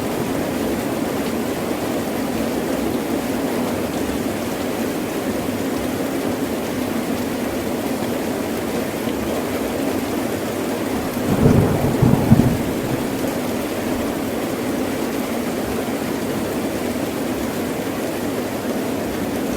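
Heavy rain falling steadily, with a short burst of thunder a little past halfway that comes in two close pulses.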